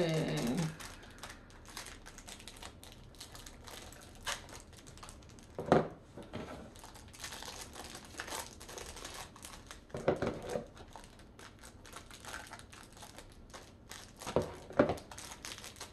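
Crinkling and rustling of a small packet's wrapper as it is handled and picked open by hand. Several sharper crackles stand out, about 4, 6, 10 and 15 seconds in; the one near 6 seconds is the loudest.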